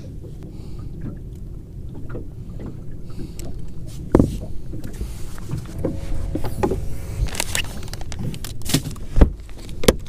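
Handling noises on a bass boat's carpeted deck: a few sharp knocks and clatter as a floor storage hatch is worked open and a plastic bag of soft-plastic worms is pulled out and rustled, the loudest knock near the end. Under it, a steady low rumble of wind and water on the boat.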